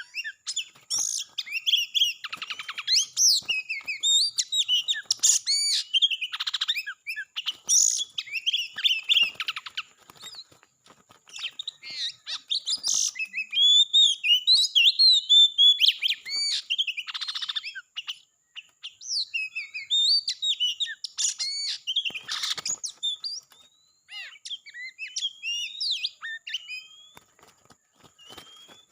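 Oriental magpie-robin singing: a rapid, varied run of whistles and chirps broken by several harsh rasping notes, pausing briefly a couple of times. A faint steady thin high tone runs underneath.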